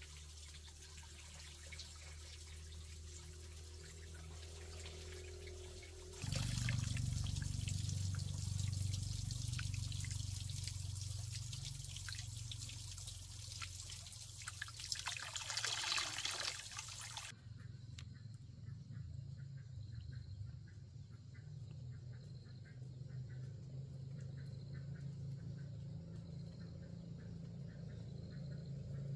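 Water trickling in a steady hiss, which starts abruptly about six seconds in, swells briefly about ten seconds later, then cuts off sharply, leaving a low hum with faint ticking.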